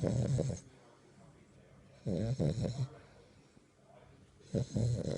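French bulldog puppy snoring: three loud snores about two and a half seconds apart, one ending about half a second in, one about two seconds in and one near the end. Each is a low buzz with a hiss above it.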